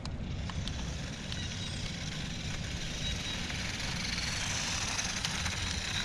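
Small 1:18-scale toy RC car's electric motor and gears whirring as it drives on asphalt, a steady high hiss-like whir over a low rumble.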